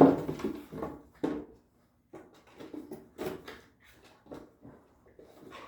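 Labradoodles playing together: a run of short, irregular scuffles and low vocal sounds, loudest at the very start.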